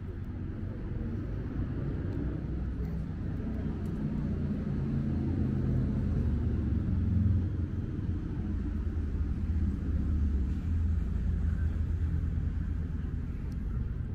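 Low rumble of road traffic, swelling toward the middle and easing off again.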